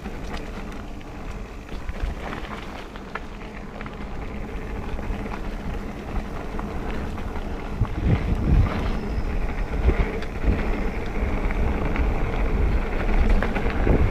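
Mountain bike ridden along a dirt trail: wind rumbling on the action-camera microphone over tyre noise, with scattered clicks and knocks from the bike. The rumble grows louder about eight seconds in.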